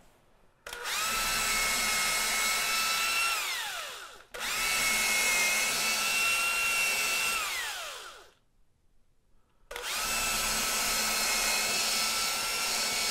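Cordless drill with a small twist bit boring through cork roadbed, run three times: each run a steady whine that falls in pitch as it spins down. The first two follow almost back to back, and after a short pause the third is still running at the end.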